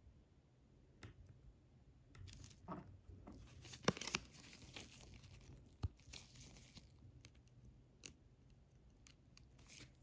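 Faint crinkling and peeling of a sheet of star nail stickers worked between nitrile-gloved fingers, over several seconds, with a few light sharp clicks, the loudest about four seconds in.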